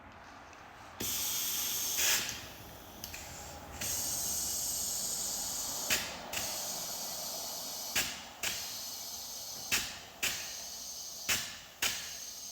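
Compressed air hissing steadily as the two-stroke expansion chamber is pressurised to about 60 psi. Sharp knocks ring out every second or so in the second half.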